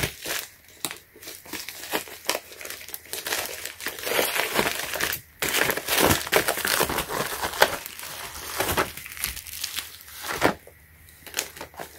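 Packaging being unwrapped by hand: dense, irregular crinkling and tearing that stops about ten and a half seconds in, followed by a few faint clicks.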